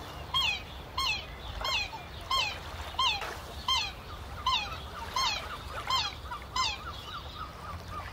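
Black swan calling: a repeated, even series of about ten high bugling notes, roughly one every two-thirds of a second. Quicker, fainter chirps join in over the second half.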